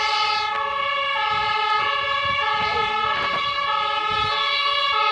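Fire engine's two-tone siren (German Martinshorn) sounding on an emergency run. It alternates steadily between a lower and a higher note, each held about two-thirds of a second, loud throughout.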